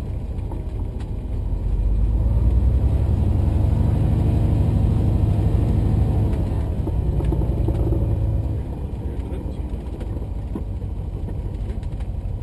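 Cessna 210 Turbo's turbocharged six-cylinder engine and propeller droning inside the cabin. It grows louder about one and a half seconds in, holds, and eases back at about eight and a half seconds.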